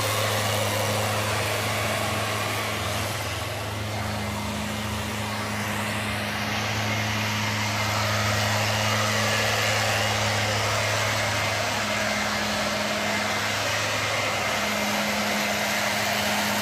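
Stihl blower-vacuum's small petrol engine running steadily, with a rush of air from the blower.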